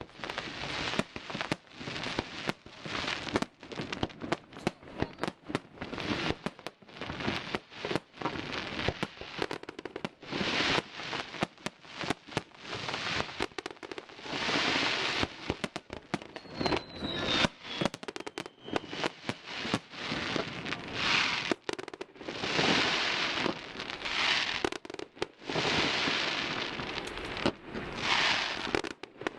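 Fireworks display: a rapid string of sharp bangs and crackles from bursting shells, with longer hissing, crackling bursts every few seconds and a faint falling whistle about halfway through.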